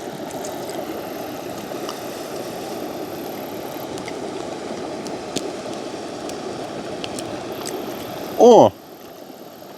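Steady rushing of a mountain river, with a few faint clicks. About eight and a half seconds in, a man gives a short 'mmm' that falls in pitch.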